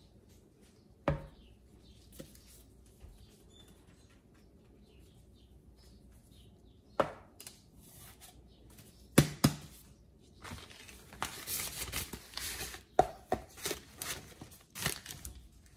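A canister of Comet cleansing powder with bleach being handled and shaken over a porcelain sink. There are several sharp knocks, and in the second half a rustling hiss as the powder is shaken out.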